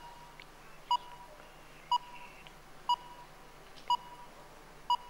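Quiz-show countdown timer beeping about once a second, six short high beeps, ticking off the last seconds of a contestant's answer time. Faint room tone lies between the beeps.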